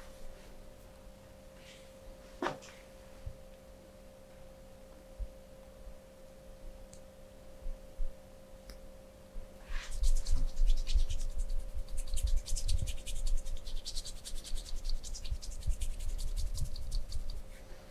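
Scratching and rubbing starting about ten seconds in: a dense run of rapid clicks and low thumps, over a steady faint hum.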